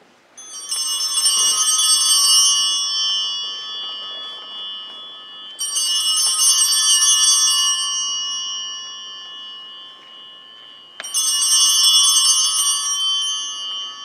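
Altar bells rung three times, about five seconds apart, each peal a shimmering cluster of small high bells that rings out and slowly fades. They mark the elevation of the chalice at the consecration in the Eucharist.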